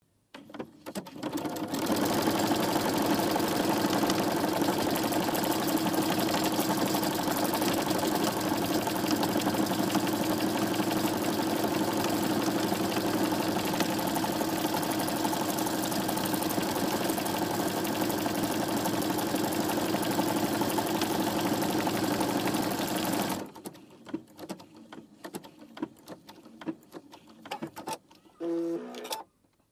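Electric sewing machine stitching a buttonhole with its automatic buttonhole foot: the motor and needle run at a steady speed for about twenty seconds, then stop. Afterwards a few light clicks and a short mechanical sound near the end.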